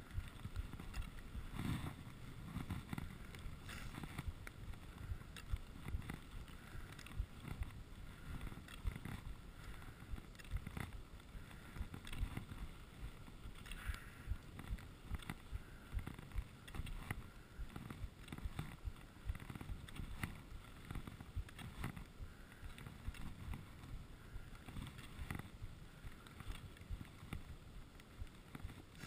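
Skis sliding over groomed snow, a steady hiss broken by short scrapes at irregular intervals as the edges bite, with low wind rumble on the GoPro's microphone.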